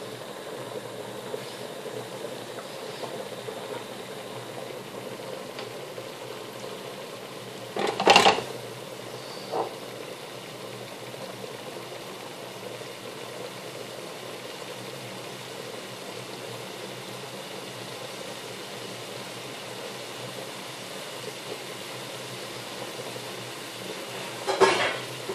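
Curry sauce simmering in an aluminium pan on a gas hob, a steady low bubbling. A sharp knock comes about 8 seconds in, a smaller one soon after, and a few more near the end.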